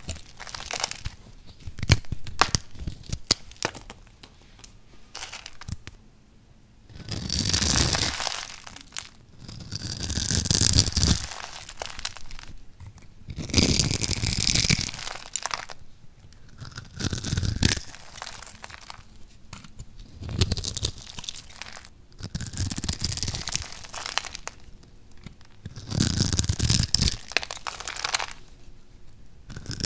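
A thin blade slicing through a bar of dry soap scored into a grid, each stroke a crisp crackling crunch as small cubes and slices break off and fall. Quick sharp clicks through the first few seconds, then about seven longer slicing strokes of a second or so each, with short pauses between.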